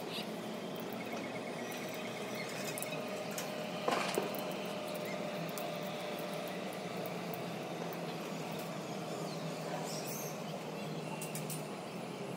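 Steady background noise, broken about four seconds in by two sharp cracks in quick succession.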